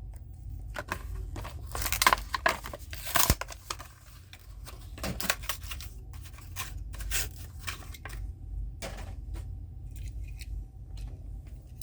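A Hot Wheels blister-card package being opened by hand: cardboard tearing and plastic crinkling in irregular bursts, busiest a couple of seconds in and again later.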